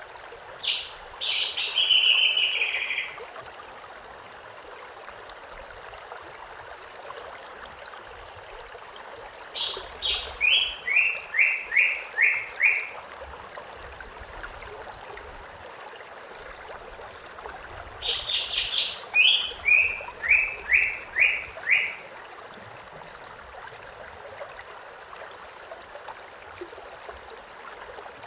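A songbird singing the same phrase three times, about every nine seconds: a few high notes, then a falling run of five or six short notes. Under it runs the steady rush of a stream.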